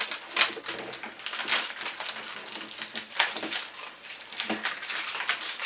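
Plastic wrapping crinkling and crackling in irregular bursts as it is peeled and torn off toy potion bottles by hand.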